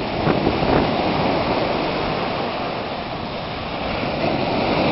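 Ocean surf washing onto the beach: a steady rushing noise.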